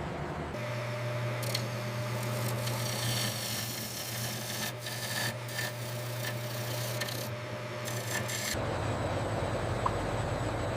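Machinery running with a steady low hum under a rough, scraping noise, which gives way abruptly about eight and a half seconds in to a lower rumble.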